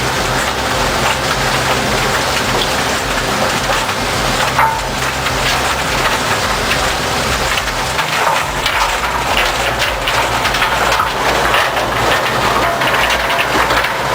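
Industrial recycling machinery processing debris, likely a McCloskey 621 trommel plant: a continuous rattle and crackle of material tumbling and breaking over a low machine drone.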